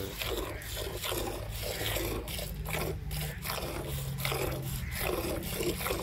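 A water buffalo being milked by hand into a steel bucket: rhythmic squirts of milk into the pail, about two a second.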